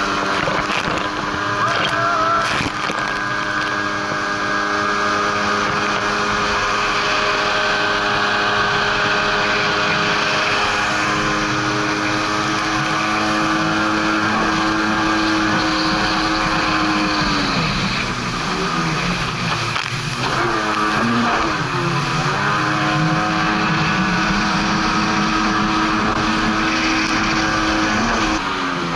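Sea-Doo GTI jet ski's engine running at speed, with rushing wind and water noise. The engine note holds steady, then drops and wavers up and down for several seconds past the middle before settling back to a steady pitch.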